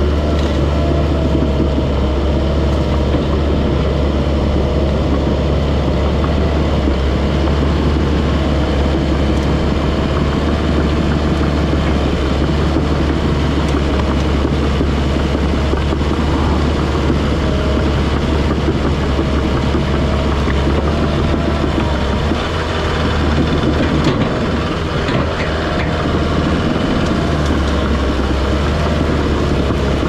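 Komatsu crawler dozer's diesel engine running steadily under load while the machine pushes brush with its root rake.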